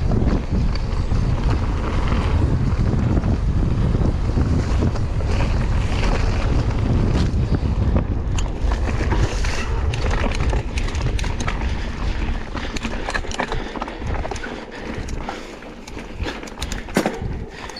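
Wind buffeting the microphone of a GoPro action camera on a fast mountain bike ride, over tyre rumble from the trail. About two-thirds of the way through the wind drops and the sharp clicks and rattles of the bike on rough ground come through.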